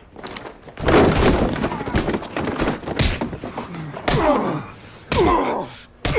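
Punches landing in a fistfight: a run of heavy thuds about once a second, each followed by grunts and groans of pain.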